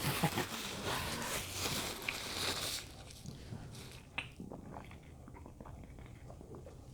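Close-up mouth sounds of someone eating: biting and chewing food. A louder, noisy stretch fills the first three seconds, then quieter chewing with small clicks.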